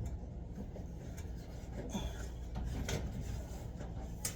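Soft rubbing and scraping as clumps of lint and dust are pulled by hand out of an electric dryer's cabinet, with a few light ticks against the sheet metal.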